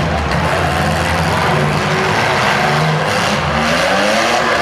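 Several demolition derby cars' engines running together, loud and steady. About three seconds in, one engine revs up with a rising pitch.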